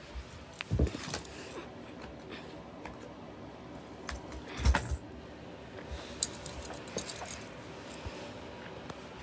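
Handling noise: rustling and clattering as things are moved about by hand, with two heavier thumps, one about a second in and one near the middle, and a brief bright jingle of small hard objects a little after six seconds.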